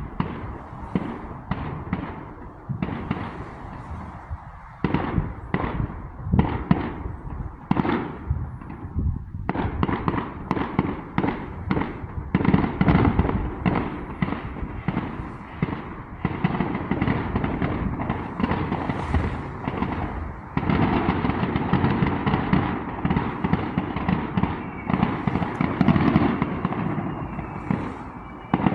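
Fireworks going off: separate bangs and crackles at first, then from about ten seconds in a dense, rapid barrage of overlapping bangs that grows louder again around twenty seconds in.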